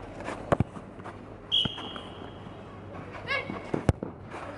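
Football kicks and bounces on an artificial-turf pitch: a couple of sharp thuds about half a second in and a sharp kick of the ball near the end, with a short shout between them.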